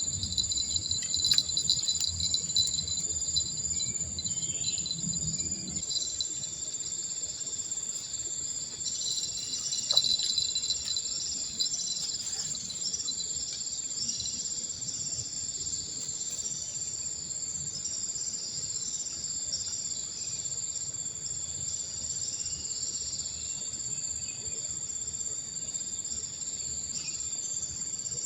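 Steady, high-pitched insect chorus: a continuous shrill trill holding through the whole stretch. A few faint clicks and some low handling noise sit under it in the first six seconds.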